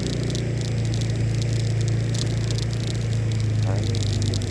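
A vehicle engine running at a steady, even pitch under a noisy hiss of wind and road, heard from on board the moving vehicle. A brief rising chirp comes a little before the end.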